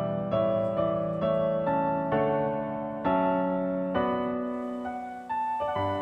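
Background music: gentle piano, notes and chords struck about every half second to second, each ringing out and fading.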